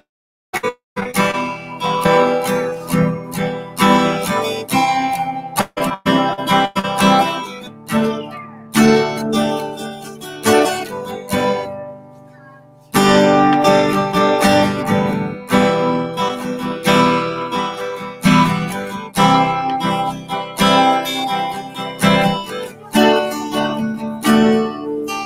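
An acoustic string instrument strummed in chords. The strumming fades briefly about twelve seconds in, then picks up again.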